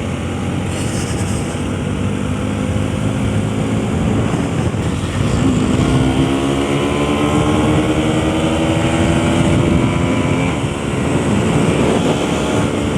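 Bajaj Pulsar NS200 motorcycle's single-cylinder engine running under way. About five seconds in its pitch climbs steadily for some five seconds as the bike accelerates through a gear, then drops as the throttle is rolled off.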